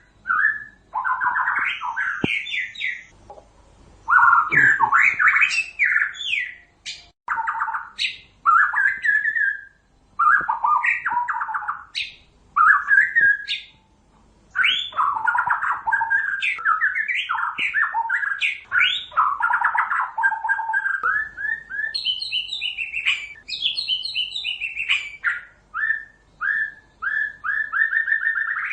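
White-rumped shama (murai batu) singing: a string of varied whistled and warbled phrases with short pauses between them. Near the end comes a quick run of repeated short notes.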